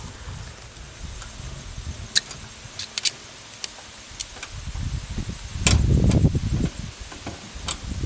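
Scattered light clicks and taps from hands handling a metal RV power outlet box, with a louder low rumble swelling for about a second and a half, around five to six and a half seconds in.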